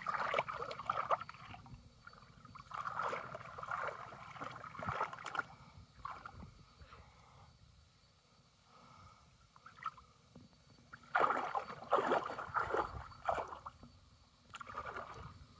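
Shallow muddy water splashing and sloshing in several irregular bursts as a bamboo polo fish trap is worked in the water and hands grope around it for fish, with quieter gaps between.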